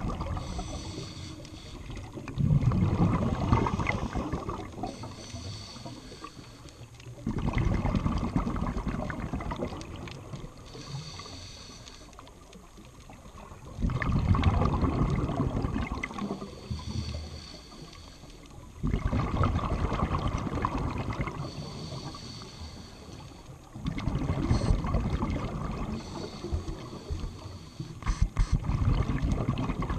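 Scuba diver breathing through a regulator, heard underwater: a hiss on each inhale, then a louder bubbling rush on each exhale. The breaths come about every five seconds, six in all.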